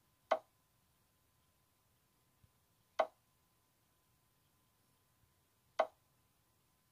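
Chess program's move sound effect, a short wooden piece-placing click, heard three times about two and three-quarter seconds apart, once for each move played on the board.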